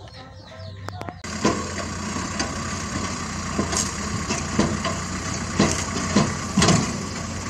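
A few light clicks of plastic toys set down, then a tracked hydraulic excavator's diesel engine running with its bucket breaking and shifting rock, sharp knocks and cracks about once a second over the engine's steady hum.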